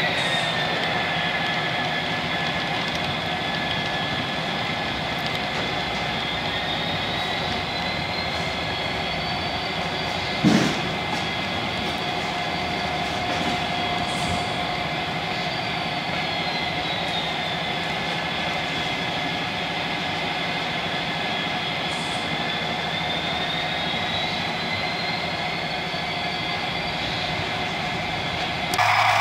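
Model railway DCC sound decoder playing a locomotive sound through its small onboard speaker: a steady hum with held tones and a high whine that slowly rises and falls twice. One sharp click comes about ten seconds in, and the sound changes abruptly near the end.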